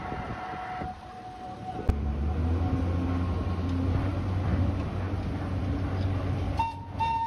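Low, steady vehicle rumble that starts with a sharp knock about two seconds in. Near the end a steady high tone comes in.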